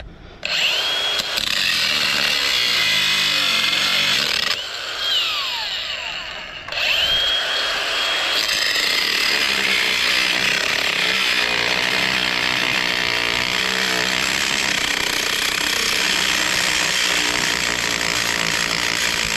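Cordless angle grinder with a cut-off disc spinning up and cutting into a transformer's laminated steel core, a loud grinding over a high motor whine. About four and a half seconds in the trigger is let go and the whine falls away, then the grinder starts again and cuts steadily.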